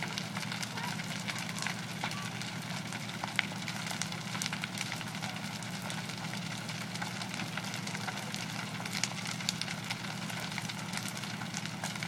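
Burning wood-frame house crackling and popping, many sharp snaps scattered through it, over a steady low rumble.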